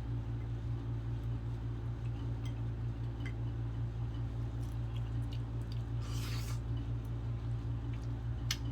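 Eating sounds: soft squishy mouth and hand noises with small scattered clicks. There is a brief rustle about six seconds in and a sharp click near the end, all over a steady low hum.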